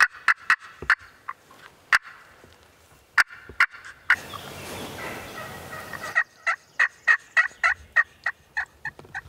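Turkey pot call (friction call) worked with a wooden striker, imitating a hen: a few sharp clucks, a couple of seconds of raspy purring, then a run of about a dozen yelps.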